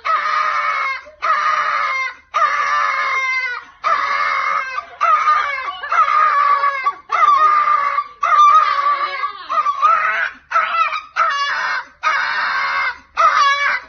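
A dog vocalizing in a run of about a dozen long, whining howl-like calls, mostly held at one pitch with a few bends and short gaps between them.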